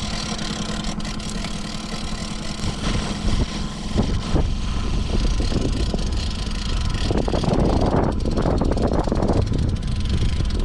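Boat's outboard motor running steadily at low trolling speed, with a louder rush of wind or water noise about seven seconds in.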